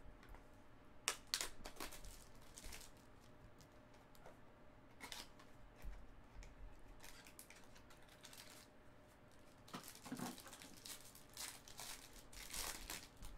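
Foil trading-card pack wrapper being handled, torn open and crinkled in a series of short rustling bursts.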